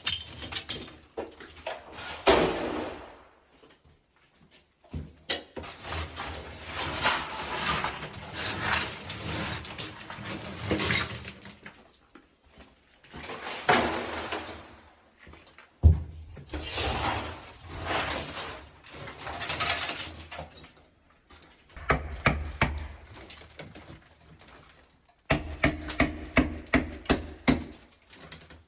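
Demolition of ceramic bathroom wall tile with hammers and a crowbar: bursts of strikes, cracking and broken tile clattering down, each a few seconds long. Near the end comes a quick run of sharp hammer strikes.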